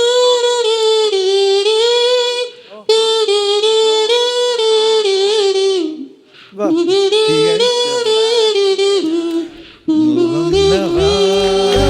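Comb-and-paper, a comb with paper over it blown and hummed through like a kazoo, playing a buzzy melody in long held notes, in three phrases with short breaths between. Backing music with a low beat comes in near the end.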